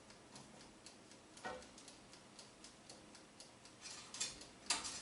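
Faint, steady ticking of the Tristar air fryer's mechanical timer dial, with a few louder clicks or knocks, one about a second and a half in and two near the end.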